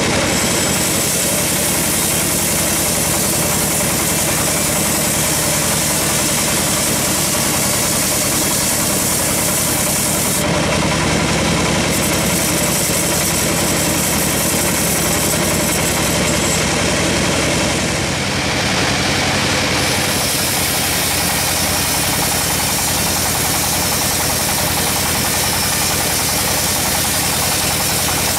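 Band sawmill running steadily, its vertical band blade sawing lengthwise through a teak log: a constant loud mechanical drone of the mill's drive with the blade cutting the wood.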